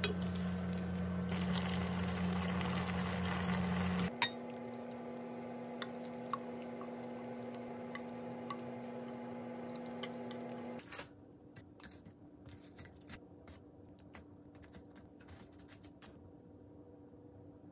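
Wide pasta in a creamy sauce being stirred and tossed in a nonstick frying pan, then slid out onto a plate, with wet squishing and light clicks of chopsticks and spoon over a steady hum. About four seconds in, and again about eleven seconds in, the hum changes and the sound grows quieter, leaving only scattered taps.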